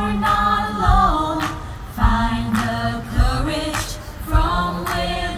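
Music with singing voices, several held sung lines over a low drum beat that falls about once a second.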